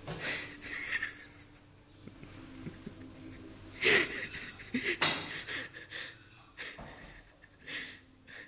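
Breathy snorts and grunts with several sharp knocks, the loudest about four seconds in, as a toddler works a mop across a tiled floor.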